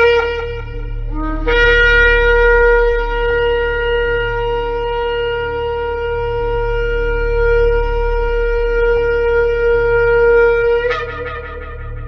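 Shofar blasts. One blast ends about half a second in and a short lower note follows. Then a single long blast is held on one steady pitch for about nine seconds and breaks off with a brief upward flare near the end. A steady low hum sits underneath.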